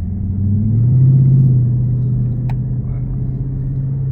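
Dodge Challenger R/T's 5.7-litre V8, its mid-muffler deleted, with the exhaust in regular mode: it rises in pitch as it speeds up about a second in, then settles into a steady drone. A faint click about midway.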